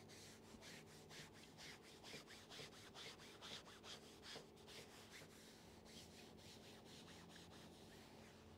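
Faint rubbing of a small hand iron pushed quickly back and forth over quilt backing fabric, about two to three strokes a second, pressing the layers onto fusible wadding.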